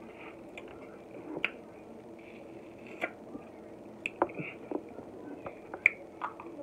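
Crab leg shells being cracked and snapped apart by hand, a handful of sharp irregular cracks, along with wet sucking and chewing of the crab meat.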